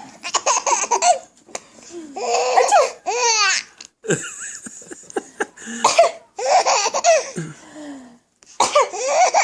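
A baby laughing in several high-pitched bursts with short pauses between them, a response to its mother's sneezes.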